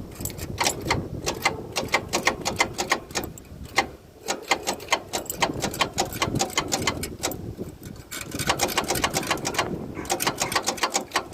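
Starter of an old Woodchuck WC17 wood chipper clicking rapidly at about four or five clicks a second, in three tries of about three seconds each, without turning the engine over. This is the sign of an engine that may be seized after sitting for years.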